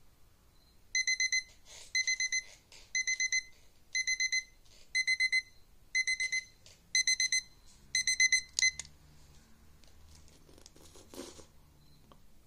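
Taylor digital timer's alarm beeping in quick groups of four, about once a second for some eight seconds, signalling that the countdown has run out. Then it stops and faint rustling follows.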